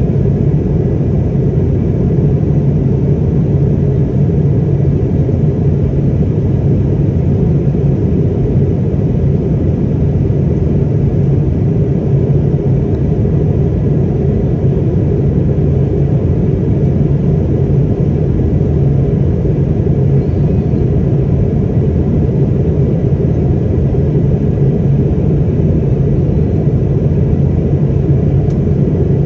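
Steady cabin noise of an Airbus A220-300 airliner in flight, heard from inside the cabin: the even, deep rush of its Pratt & Whitney PW1500G geared turbofan engines and the airflow, with a low steady hum and no change in level.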